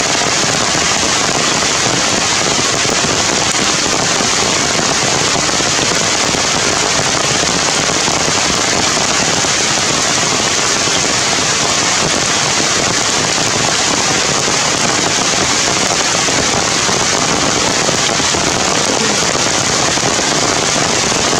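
Heavy rain falling steadily: a loud, even hiss with no breaks or changes.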